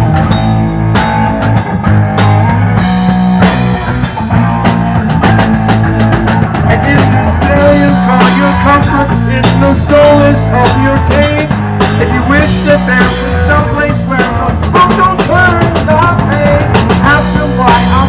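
Funk-rock band playing live: electric guitar and drum kit in an instrumental break between sung verses. About six seconds in, a lead line with bending notes comes up over the steady low end and drums.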